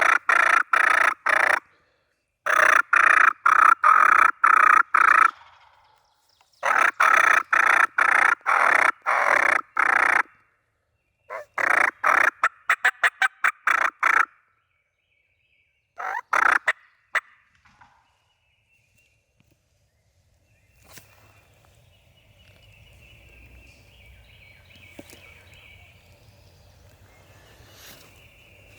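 Turkey yelping: five loud runs of evenly spaced raspy notes, about three a second, the later runs shorter, stopping after about seventeen seconds.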